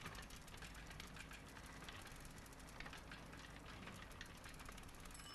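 Near silence: faint, irregular crackle of small clicks over a low hiss.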